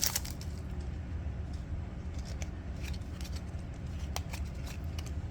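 Trading cards being handled and flipped through one by one: soft scattered clicks and slides of card edges, over a low steady hum.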